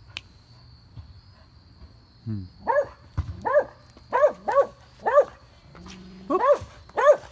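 A dog barking repeatedly: about seven short, sharp barks in an uneven run, starting about two seconds in.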